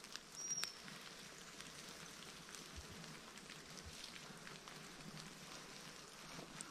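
Faint, steady patter of light rain falling on woodland foliage, with a single short high chirp about half a second in.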